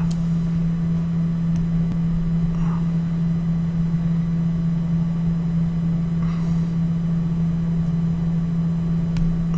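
Steady low electrical hum with a background hiss from the recording setup, and a couple of faint clicks.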